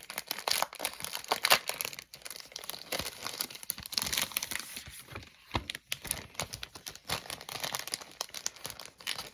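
Plastic packaging crinkling and crackling in quick, irregular rustles as it is handled and pulled open.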